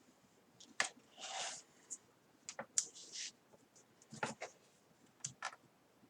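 A few sharp clicks and taps with short rubbing sounds, scattered over several seconds, as a replacement laptop LCD panel is handled and laid into the plastic screen lid.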